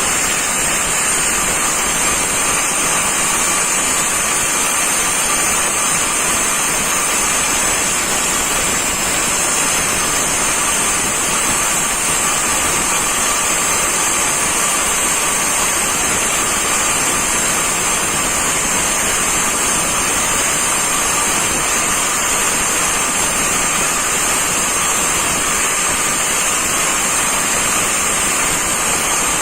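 Angle grinder running steadily, a constant high whine over a dense hiss, with no let-up in load.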